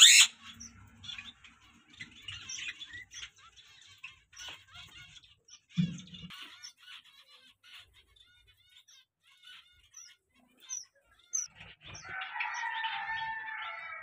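Small cage birds chirping in an aviary: many short high chirps, with a longer warbling call near the end. A sharp knock at the very start and a soft thump about six seconds in.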